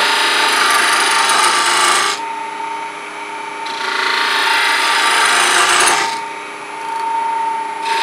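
A small gouge cutting a cove into a small piece of wood spinning on a lathe, in three cutting passes with short pauses a little after two seconds and near six seconds. A steady whine from the running lathe continues underneath.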